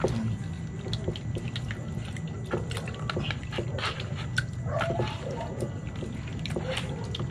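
Hands kneading and rubbing slimy malabanos eels in vinegar to strip off the slime: irregular wet squelches and clicks, with a few short squeaks about halfway through.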